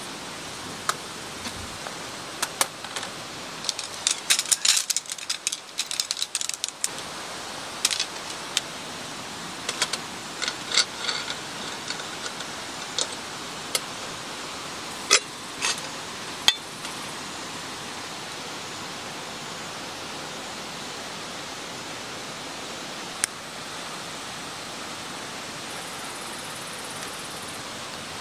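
Steady rushing of a mountain stream, with a scattered run of light clicks and clinks over it, thickest about four to seven seconds in, and a single click later on.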